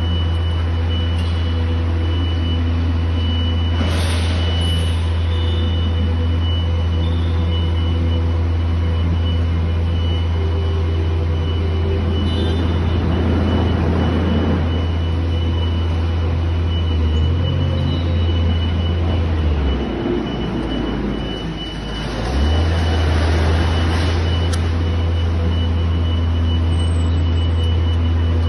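Linde electric reach truck running with a steady low hum and a faint steady high tone. The hum drops away for a few seconds about two-thirds of the way through, then returns.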